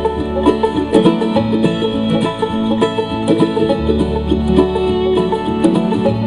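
Instrumental break in an acoustic country ballad: quick plucked-string picking over a steady bass line, with no singing.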